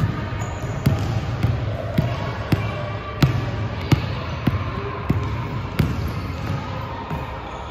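Basketball bouncing on a hardwood gym floor in a steady dribble, a little under two bounces a second, including between-the-legs dribbles. The bouncing stops about six seconds in as the ball is gathered for a layup.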